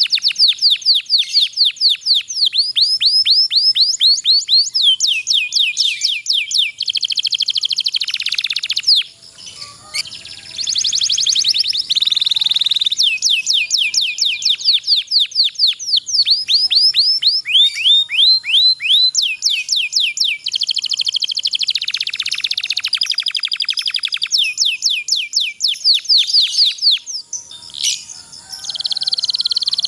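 Domestic canary singing long rolling trills: fast series of high, downward-sweeping notes whose speed changes from phrase to phrase, with short breaks about nine seconds in and again near the end.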